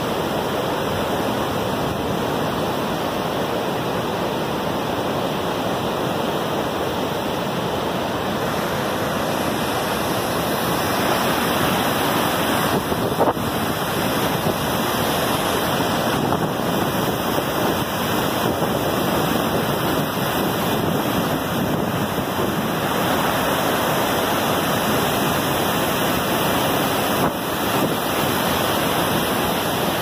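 Steady, loud rush of the Iguaçu Falls: heavy brown floodwater pouring over many cascades and churning in the gorge below, a little louder about a third of the way in.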